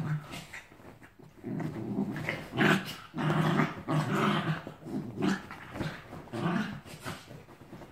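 Two small dogs growling at each other while play-wrestling, in a run of short rough growls that starts about a second and a half in and keeps on until near the end.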